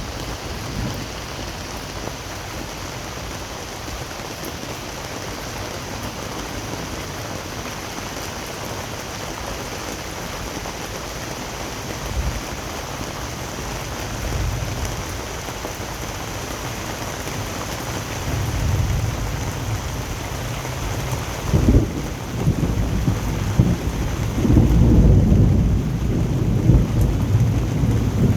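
Steady rain falling through a thunderstorm, with thunder rumbling low underneath. The rumbles grow heavier in the second half, with a sudden sharp clap about two-thirds of the way through and the loudest rolling thunder near the end.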